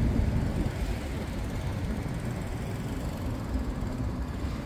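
Street traffic: a steady low rumble of cars and buses on a multi-lane city road.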